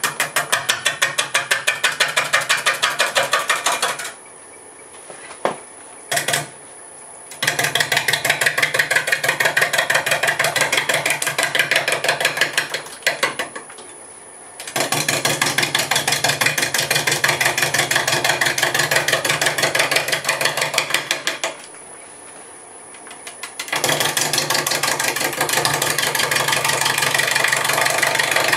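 A gouge cutting an out-of-round half log of green apple wood spinning on a wood lathe at about 400 RPM. It makes a rapid chopping, about six or seven hits a second, as the tool strikes the high side of the blank on each turn. The chopping breaks off three times, about four, fourteen and twenty-two seconds in, as the tool is lifted to a new spot, leaving only the lathe's quieter hum.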